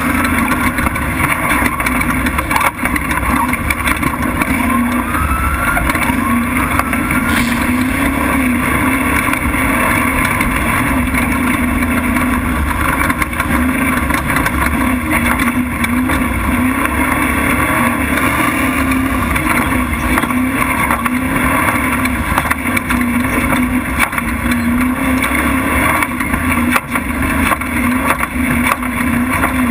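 Prerunner race truck's engine running hard and steady at speed, with a slightly wavering note over a heavy rumble from driving on a rough desert dirt track.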